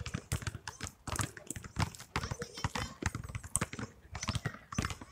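Several basketballs being dribbled on an asphalt court at once, many overlapping bounces at irregular intervals.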